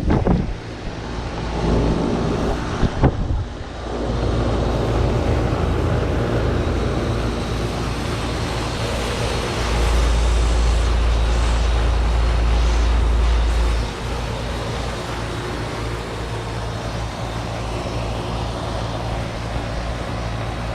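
2004 Tempstar 5-ton central air conditioner's outdoor unit running: a steady compressor hum under the rush of the condenser fan. Wind buffets the microphone with a louder low rumble from about ten to fourteen seconds in.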